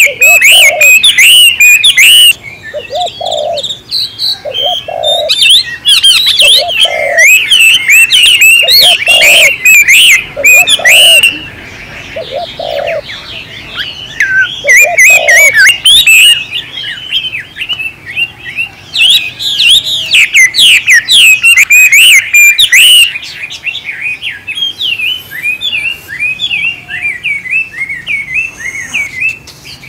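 Many small songbirds chirping and twittering continuously, with a dove cooing in a run of short low notes, some in pairs, through the first half.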